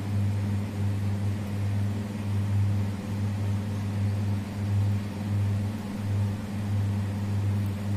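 A steady low hum that swells and dips gently, with a fainter higher hum above it.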